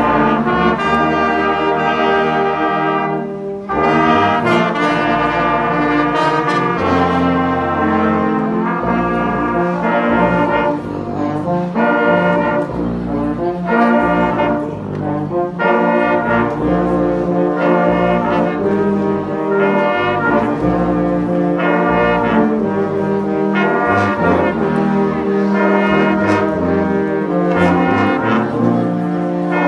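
Brass band of trumpets, euphoniums and tubas playing a tune in full harmony, with deep bass notes under the melody and a steady beat.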